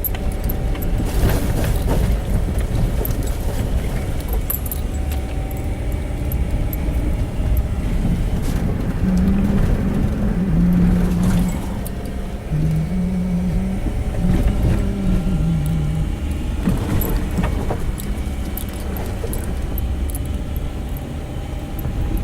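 Truck driving on a snow-covered road, heard from inside the cab: steady engine and road rumble with a light jingling rattle. About halfway through, a few low held notes sound for several seconds.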